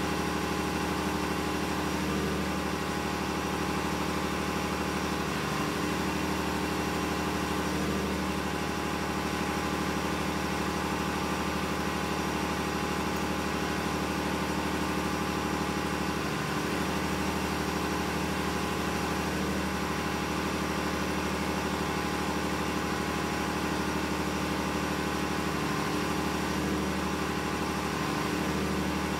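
Steady drone of running diesel machinery in a ship's engine room, an even hum made of many steady tones that holds without change.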